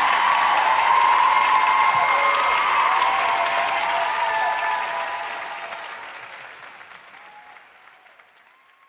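Live concert audience applauding and cheering, with scattered shouts over the clapping. The applause fades out over the last few seconds.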